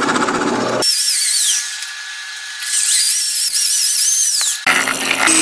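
Power drills boring into wood. First a drill press grinds through a board, then a high-pitched drill motor whine rises and falls in pitch several times, and near the end there is another short burst of drilling.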